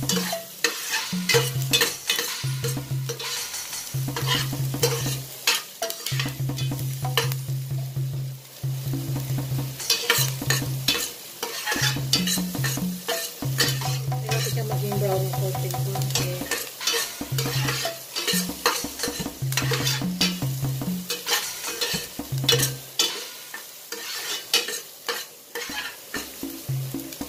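Metal ladle stirring and scraping chopped onions around a stainless steel frying pan, irregular clinks and scrapes over the sizzle of onions frying in a little oil.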